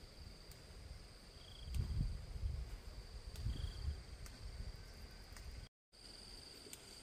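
Insects trilling in one steady high tone, with a short chirp twice, about two seconds apart, and low rumbling noise swelling around two and three and a half seconds in. The sound cuts out completely for a moment near the end.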